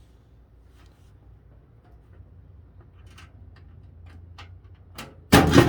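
Light scattered ticks and taps of a microwave's sheet-metal outer cover being worked back into place, over a faint low hum, ending in one loud metallic clatter about five seconds in.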